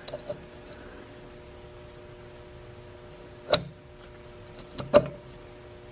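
Two sharp metal clinks about a second and a half apart, with a few lighter taps at the start, from tools and engine parts knocking together while the piston rings are compressed to fit the piston into the cylinder.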